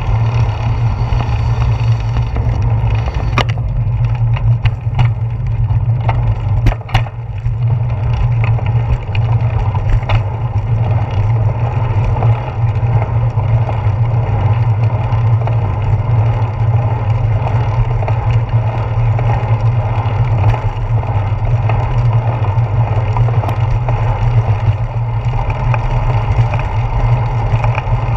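Bicycle ride heard from a handlebar-mounted GoPro Hero 4: wind buffeting the camera and tyres rolling on pavement make a steady, loud low rumble. A few sharp knocks come between about three and ten seconds in.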